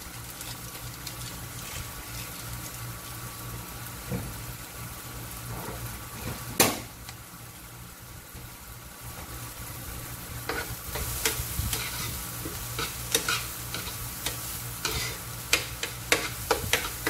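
Chopped onion and garlic sizzling in oil in a nonstick frying pan as they caramelize. One sharp knock comes about a third of the way in. In the second half a metal spoon clinks and scrapes against the pan in quick irregular taps as the mixture is stirred.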